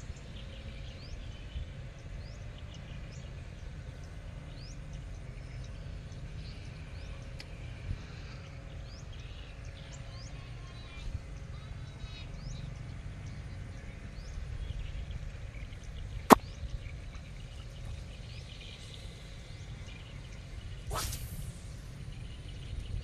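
Outdoor ambience: a steady low rumble with scattered faint bird chirps. A single sharp click about two-thirds of the way through is the loudest sound, and a brief hiss follows near the end.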